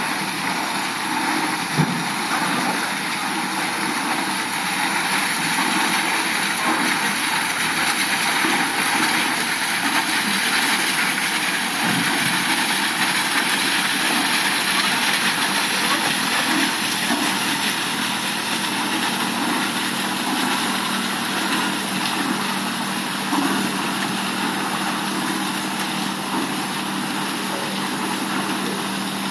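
Paddle steamer running steadily on trials: a continuous rushing hiss over a low, even machinery hum, with no change in pace.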